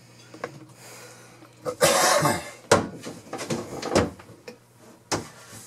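Wooden birch wall cabinet being shifted and pressed into place against the wall. There is a loud scrape about two seconds in, then three sharp knocks of wood a second or so apart.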